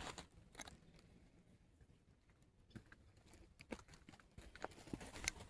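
Near silence with a few faint scattered clicks and taps, the clearest ones in the last two seconds.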